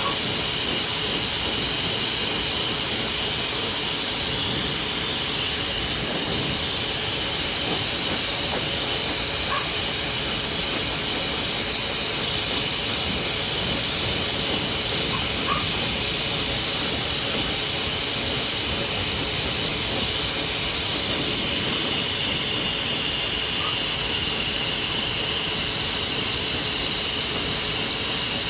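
Pet blow dryer running steadily, a constant rush of air as the dog's coat is dried.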